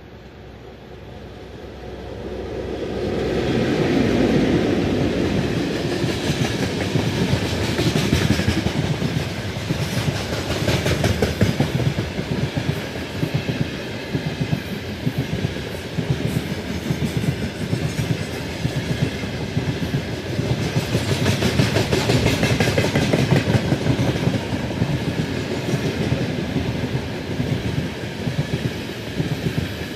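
Train hauled by a VL10U electric locomotive passing close by: it comes up loud over the first few seconds, then the wheels run on in a steady, rhythmic clatter over the rail joints.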